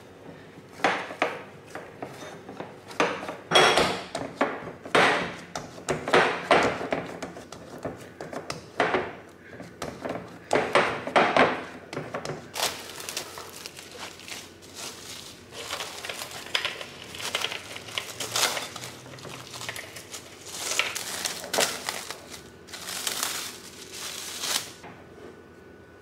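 Bread dough being kneaded by hand in a glass bowl, knocking and rubbing against the glass in a run of separate strokes. From about halfway through, plastic cling film crinkles as it is handled.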